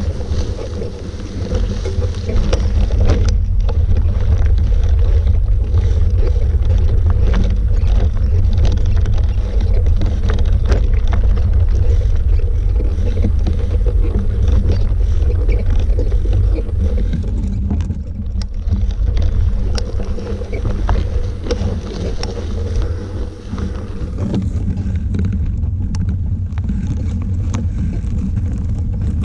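Heavy wind rumble on the microphone of a camera moving along a rough dirt track, over a steady low drone, with scattered small clicks and knocks throughout. The rumble eases slightly around two-thirds of the way through.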